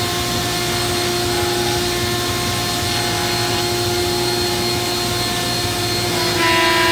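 ShopBot CNC router spindle running steadily with a whine over a hiss as it V-carves letters. Near the end the sound gets a little louder and higher tones come in.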